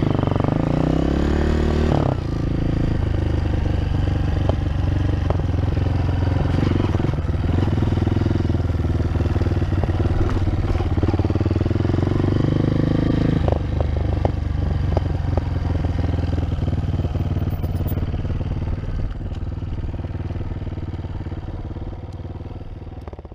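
Honda CRF230F's single-cylinder four-stroke engine running as the bike is ridden, its pitch rising and falling in the first two seconds, then holding steady. About thirteen seconds in the note drops lower, with scattered clicks and rattles, and the sound fades out near the end.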